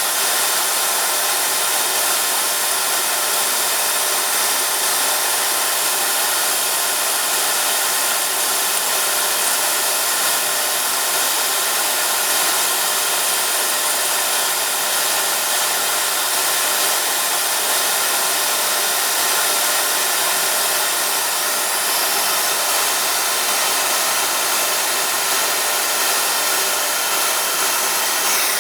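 Lathe running steadily, a continuous whirring hiss with faint steady tones in it.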